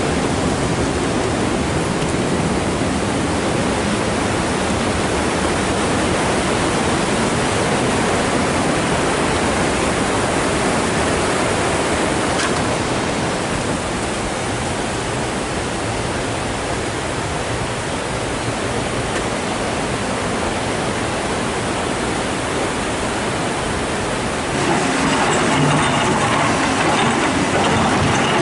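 Steady rushing of a fast river in flood. About 25 seconds in, a louder mechanical noise with a steady hum joins it.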